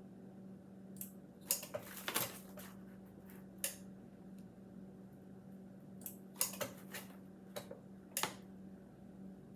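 Mylar bags being handled and pressed in an impulse heat sealer: scattered crinkles and sharp clicks in two clusters, over a steady low hum.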